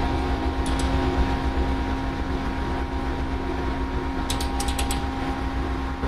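Steady ship engine-room machinery hum, with light metallic clicks of a spanner on the inspection door's bolts: a pair about a second in and a quick run of about five about four and a half seconds in.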